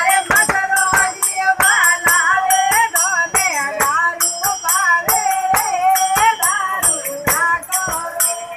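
Devotional bhajan singing, a high voice wavering through a melody over a large hand-beaten frame drum struck about two or three times a second, with bright metallic jingling.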